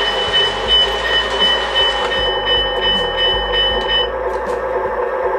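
Menards O-scale Santa Fe F3 diesel model locomotive running on the layout, with a steady diesel rumble and a high, evenly pulsing ring like a bell that stops about four seconds in. A few sharp clicks come in the second half.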